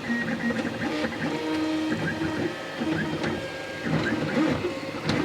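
XYZprinting da Vinci 1.0 FDM 3D printer mid-print: its stepper motors whine in steady tones that jump from pitch to pitch every fraction of a second as the print head changes moves, with small ticks between.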